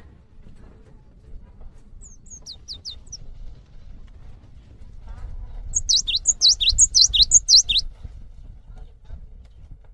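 Cinereous tit (gelatik batu) calling: a short group of about four high, quickly falling notes about two seconds in, then a louder, rapid run of about nine falling notes a few seconds later.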